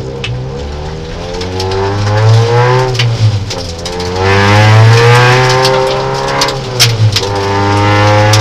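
Peugeot 309 rally car's four-cylinder engine heard loud from inside the cabin, pulling away under acceleration. Its pitch climbs, breaks about three seconds in as if at a gear change, climbs again, then falls away before holding loud near the end, with a few sharp clicks about seven seconds in.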